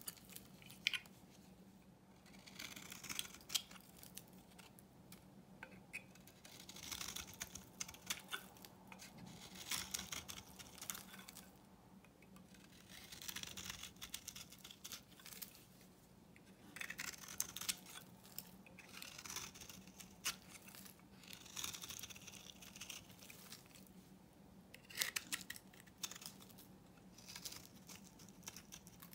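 Knife blade shaving and carving flakes off an old bar of soap: runs of crisp, crackly scraping strokes, broken by short pauses every few seconds.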